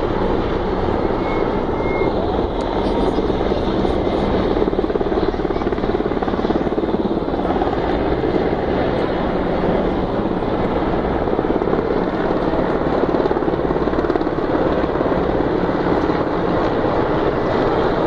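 A formation of military helicopters flying overhead, their rotors and engines making a steady, dense rumble that holds at an even level throughout.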